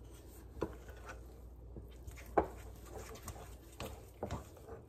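Wooden dough hook working a stiff flour-and-water bread dough in a glass mixing bowl, with a few light knocks against the glass.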